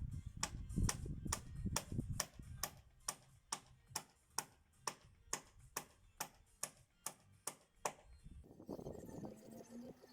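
Sharp, very even ticking or tapping, about two strikes a second, that stops a couple of seconds before the end.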